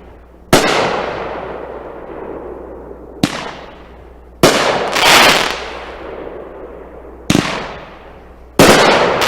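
Bada Boom 'The Hit' 9-shot firework cake going off: sharp, very loud bangs a second or more apart, each echoing away, with two of them close together about halfway through.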